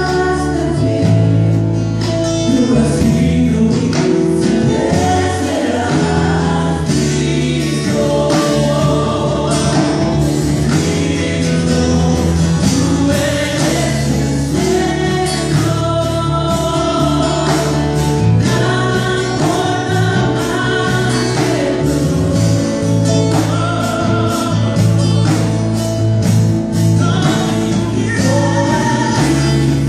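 Live band playing a gospel-style song, with several voices singing together over a steady bass line and regular drum hits.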